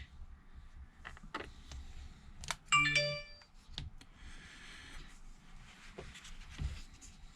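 Faint scattered clicks and taps of small parts and tools being handled, with a short electronic chime of several tones a little under three seconds in.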